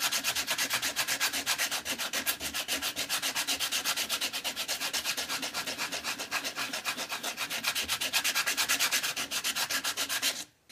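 60-grit sandpaper rubbed by hand back and forth over a Syncork synthetic-cork rod foregrip in quick, even strokes, about five a second, raising the nap to blend the surfaces. The rasping stops abruptly just before the end.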